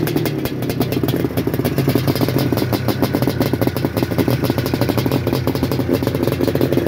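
Suzuki four-cylinder race bike engine running loudly and steadily through four open silencers with their caps taken off, warm and started without choke.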